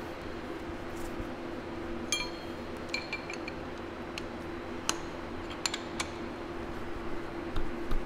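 Steel hand tool clinking against the boring mill's spindle and face mill: several sharp, ringing metallic clinks at irregular intervals over a steady machine hum.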